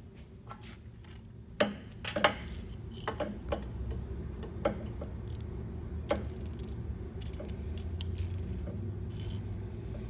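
Sharp metal clicks and clanks from a Craftsman 120-tooth ratchet being loaded in a break test, the loudest two snaps about two seconds in and scattered clicks after, as its internal teeth give way. A low steady hum runs underneath.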